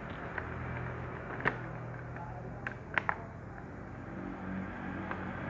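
Kittens eating soft food from a ceramic bowl: a few sharp clicks, about a second and a half in and a cluster of them around three seconds in, over a low steady hum.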